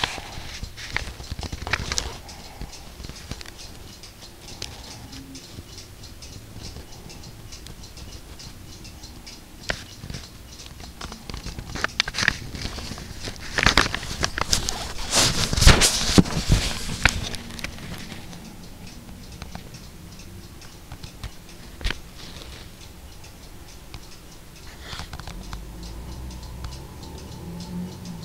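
Handling noise from an old book and the camera: paper pages rustling and crackling, with bursts of clicks and rustles that are busiest in the middle.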